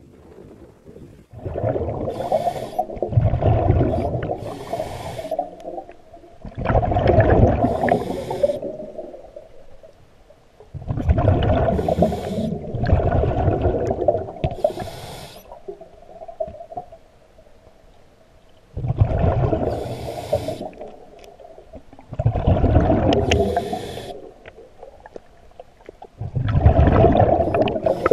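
Scuba diver's breathing heard underwater: the regulator's exhaled breath bubbling out in a rumbling burst every few seconds, with a longer pause about halfway.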